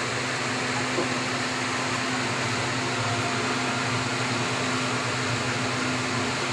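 Steady mechanical hum with hiss, holding two low steady tones throughout, and a faint click about a second in.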